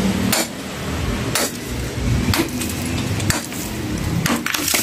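A hammer striking the concrete cover of a wall tomb to break it open: sharp clinking blows about once a second, two of them close together near the end.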